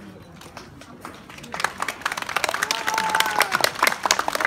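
Audience clapping, starting about a second and a half in and growing louder.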